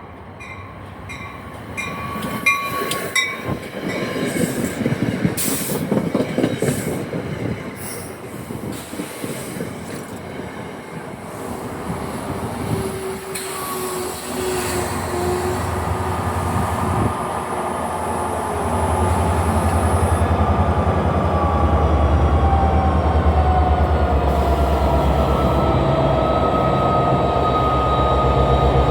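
NJ Transit train on the rails: wheels clicking over rail joints, then steady wheel squeal and slowly falling whining tones, with a low rumble that swells near the end.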